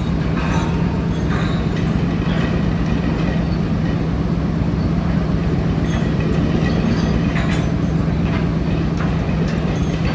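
Steady low drone of a fishing trawler's machinery, with scattered metallic clanks and rattles throughout.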